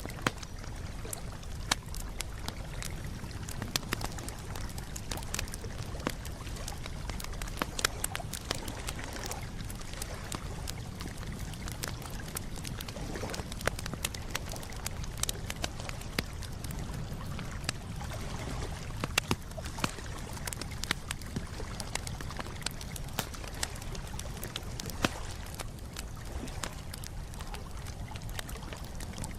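Wood campfire crackling: irregular sharp pops and snaps over a steady low rumble of flames.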